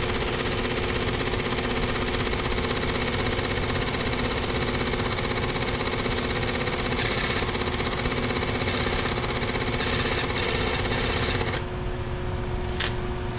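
Grain scale ticket printer printing a weigh ticket in one steady mechanical run, with a few louder passages, stopping abruptly about eleven and a half seconds in.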